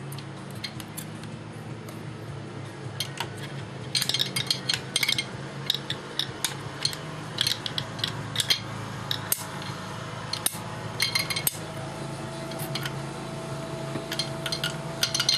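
Irregular light metallic clicks and scraping as clutch plates are worked loose and lifted out of a Gen 1 Suzuki Hayabusa's clutch basket with a magnet and hand tools. The clicks come in quick clusters about four seconds in and again near the end.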